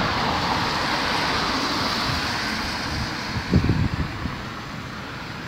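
A car driving past on the road, its tyre and engine noise swelling and then fading away. A few low thumps, like wind buffeting the microphone, come about three and a half seconds in.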